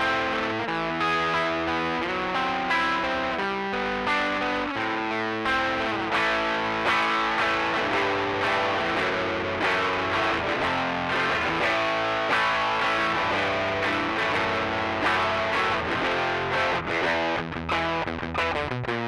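Electric guitar played through a Rocktron Austin Gold overdrive pedal with the drive turned fully up and the pre-bass at 12 o'clock, giving an overdriven tone. Separate picked notes at first, then denser chord playing from about six seconds in.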